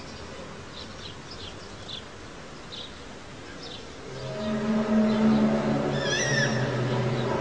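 A loud, steady low hum with several overtones comes in about four seconds in and holds: the kind of droning presented as a mysterious sound from the sky. Before it there are short high chirps, and near the six-second mark a wavering, meow-like high call sounds over the hum.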